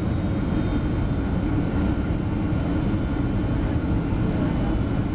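Steady rumble of a Boeing 757-200's engines and rushing air, heard from inside the passenger cabin.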